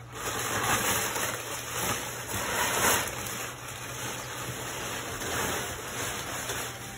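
Brown kraft packing paper crumpling and rustling as it is pulled out of a cardboard box. The rustling is loudest in the first three seconds, then softer.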